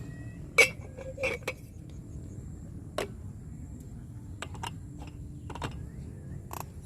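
Gear being set down and arranged on a camping table: a series of light knocks and clinks, the loudest about half a second in, then a few softer clicks spread through the rest.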